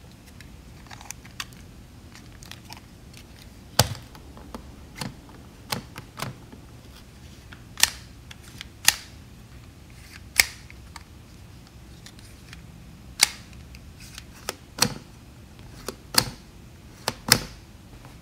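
Hard plastic toy parts clicking and tapping as they are handled and snapped together: a Supergirl kiddie-meal figure being fitted onto its yellow plastic base. The sharp clicks come at irregular intervals, about a dozen loud ones among fainter taps.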